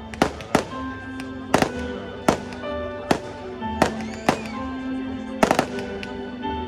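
Aerial fireworks shells bursting: about ten sharp bangs at irregular intervals, some in quick pairs, with music playing steadily underneath.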